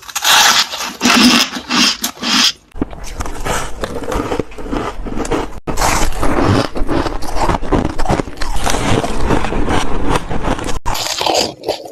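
Freezer frost being bitten and chewed close to a microphone: crisp crunching and scraping of packed frost, broken by abrupt cuts between takes.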